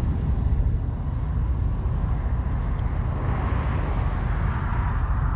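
Steady low rumble of distant road traffic, with a swell in the middle tones starting about three seconds in.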